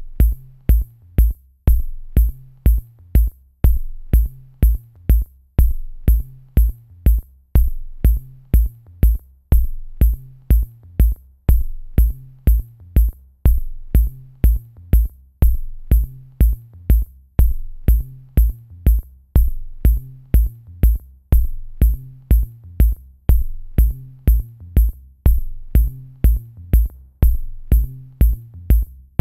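Electronic background music with a steady drum-machine beat, about two thumps a second, over a repeating bass line.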